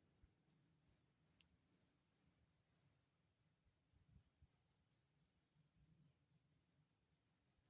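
Faint insect chorus: a high, steady trill with a regular pulse about three times a second, under near silence.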